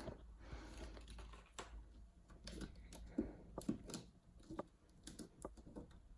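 Faint, irregular small clicks and taps of hands handling a plastic 3D-printed LED frame and pressing a self-adhesive white LED strip into its groove.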